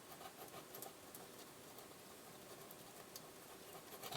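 Faint, scattered light clicks and taps of small handling, over quiet room tone, with a few more clustered near the end.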